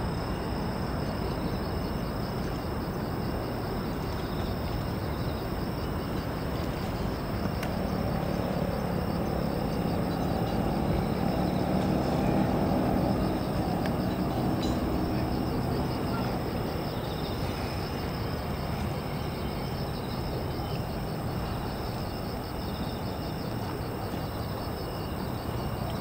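Insects chirping steadily in a high, pulsing band over a constant rumble of city traffic. A passing vehicle swells louder around the middle and then fades.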